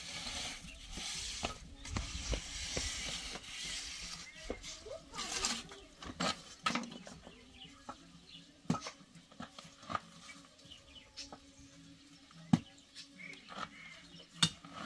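Food frying in a pan, stirred with a utensil: a light sizzle, strongest in the first few seconds, under irregular sharp clicks and knocks of the utensil against the pan.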